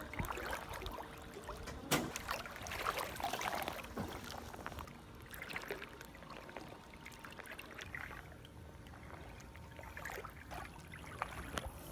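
Floodwater sloshing and splashing in irregular bursts as someone wades through it, busiest a few seconds in.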